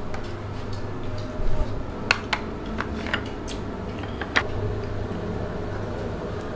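Ceramic plates being set down on a table one after another: a string of short clinks and knocks, the loudest a little after two seconds and a little over four seconds in, over a steady low hum.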